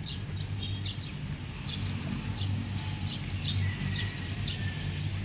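A bird chirping repeatedly in short, high, falling notes, about two a second, over a steady low rumble.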